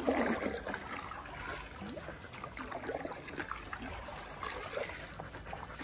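Water trickling and splashing lightly as a stand-up paddleboard is paddled across a swimming pool.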